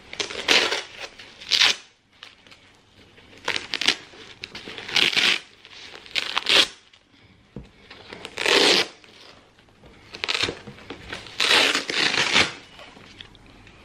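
Repeated short ripping and rustling noises, about eight bursts each under a second, from a new Orliman orthopedic walking boot being unpacked and handled, with its straps and wrapping pulled at.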